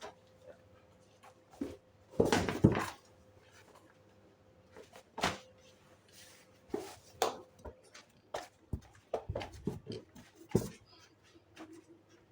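Irregular knocks, clicks and rustles of objects being handled, with a louder, rougher burst about two seconds in.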